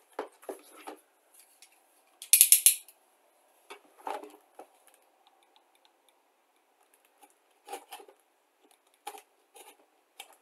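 A cardboard model-kit box being handled and set down on a desk: scattered knocks and taps, with one loud brief scraping rustle about two seconds in.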